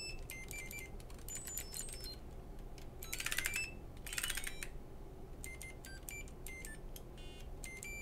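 Short, high electronic beeps from a Planck EZ keyboard's built-in speaker as keys are pressed, coming irregularly one after another. Two quick trilling runs of tones sound about three and four seconds in.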